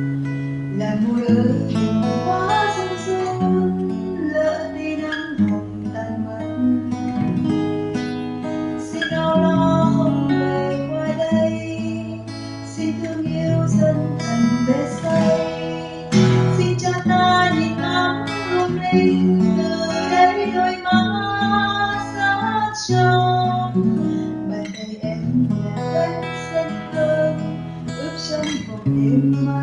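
Acoustic guitar played as a chord accompaniment, strummed and picked, with the chords changing every second or two. It is picked up by a ceiling-mounted security camera's built-in microphone.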